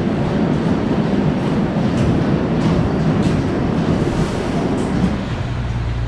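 Potato-handling conveyors and rollers running, with a dense clatter of potatoes tumbling along them. About five seconds in the clatter gives way to a steadier low machine hum.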